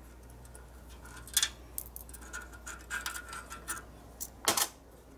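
Small metal clicks and light scraping as loose steel bearing rollers are pushed one by one into the star hub of a 1942 Harley-Davidson WLA wheel, with a sharper click about four and a half seconds in.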